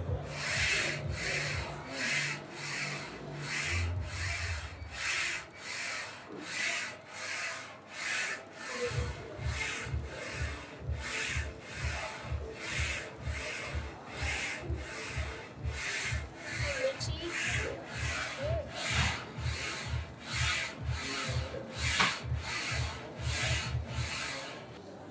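Background music with a steady beat: an evenly repeating brushed, shaker-like stroke a little under twice a second, with a pulsing bass line that turns into a fast steady throb about nine seconds in.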